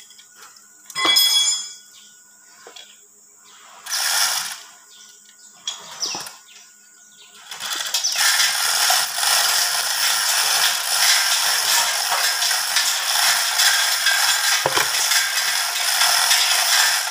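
Hand chain hoist (chain block) being worked by hand to lift a differential assembly: a metallic clink about a second in and short chain rattles around four and six seconds. From about halfway on the hand chain is hauled without a break, rattling steadily through the hoist.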